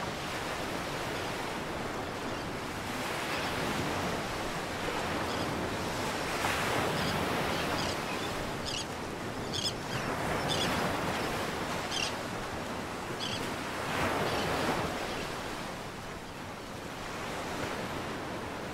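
Sea water rushing and splashing along a sailing yacht's hull under sail, swelling and easing every few seconds, with wind.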